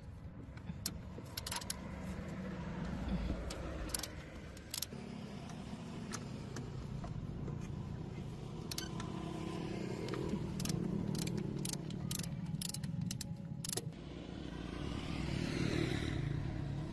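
A car's running noise: a steady low rumble with scattered sharp clicks and knocks. Near the end it swells with a sweep in pitch.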